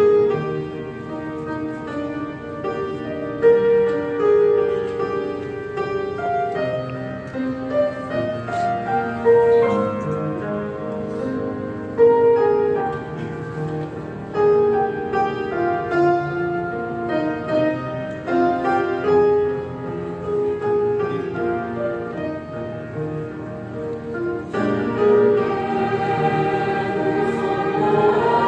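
Background music: a choir singing a slow melody of held notes over piano accompaniment.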